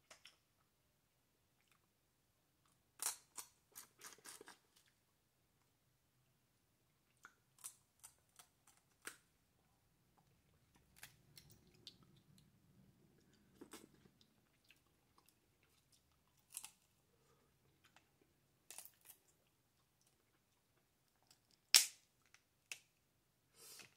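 Snow crab leg shells being cracked and snapped apart by hand, sharp cracks scattered every few seconds with a quick cluster of them early on and the loudest crack near the end. Soft chewing between the cracks.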